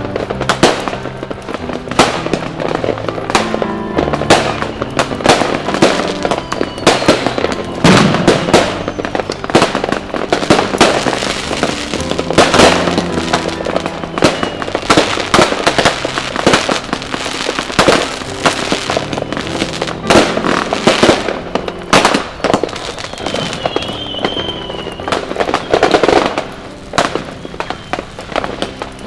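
Fireworks going off in quick succession, a dense run of sharp bangs, with background music playing under them.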